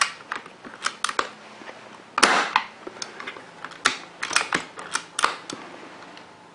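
Amoeba Striker airsoft sniper rifle with a Mancraft SDiK HPA conversion, fired once about two seconds in: a sharp report with a brief rush of gas. Handling clicks and knocks on the rifle come before and after it, with a run of them near the end.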